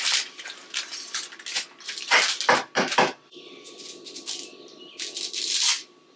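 Plastic spaghetti packet crinkling as it is handled and opened, then dry spaghetti snapped over a pot, about four sharp cracks two to three seconds in, with more crinkling near the end.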